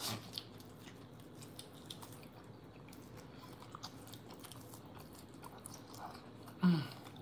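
A bite into a hand-held piece of grilled ribeye steak, then close-miked chewing with faint scattered wet clicks of the mouth. A short vocal 'mm' comes near the end.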